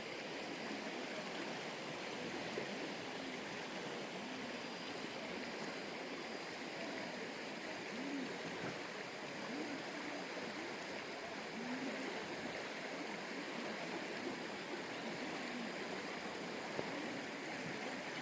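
Mountain valley stream flowing steadily, an even rush of water with small bubbling blips.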